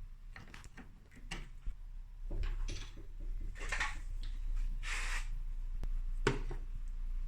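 A string of knocks, clicks and short scrapes from handling a refrigerator door and its hinge during repair work, over a low steady hum.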